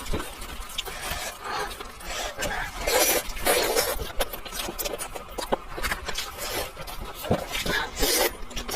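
Close-up eating sounds of kiln-baked chicken: many short smacking and chewing clicks, with louder rasping rustles about three seconds in and again near the end.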